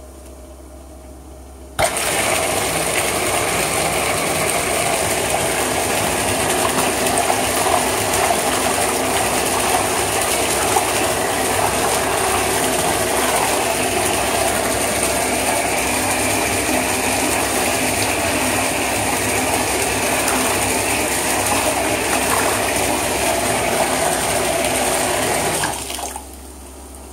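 Whirlpool bathtub jets switched on about two seconds in: a pump motor runs with a steady hum under loud churning water, then cuts off suddenly near the end.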